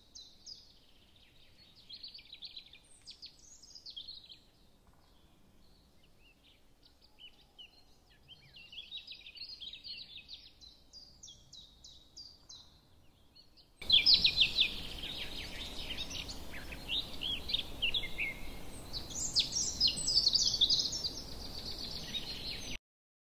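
Small birds chirping and trilling in quick high notes. They are faint at first, then louder over a steady hiss from about 14 seconds in, and cut off suddenly near the end.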